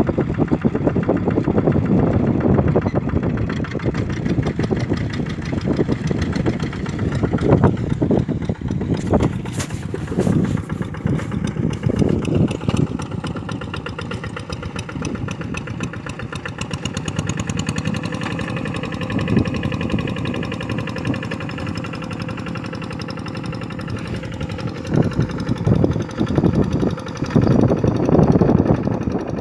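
Kubota RD85 single-cylinder diesel engine of a two-wheel hand tractor running under load with a rapid, even firing beat as it works a flooded rice paddy. It is loudest at the start and again near the end.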